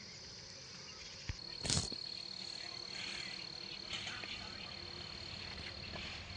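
Insects trilling in one steady, high, unbroken tone, with a short sharp noise about a second and a half in and a few faint chirps after it.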